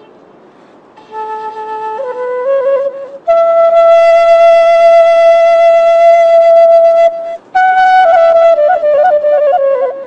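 A solo flute plays a slow melody in held notes. It climbs to a long high note in the middle, breaks off, then comes down in small ornamented steps near the end.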